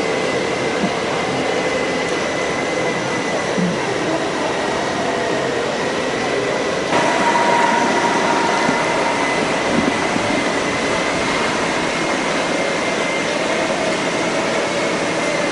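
Steady mechanical drone with a faint high whine, from a docked cruise ship's machinery and ventilation. The drone changes abruptly about seven seconds in, taking on a clearer mid-pitched hum and growing slightly louder.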